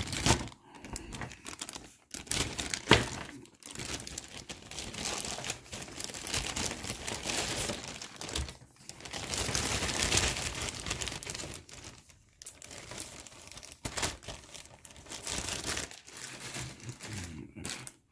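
Plastic bags of miniatures being handled and crinkled, an irregular rustling with occasional sharp crackles and short pauses.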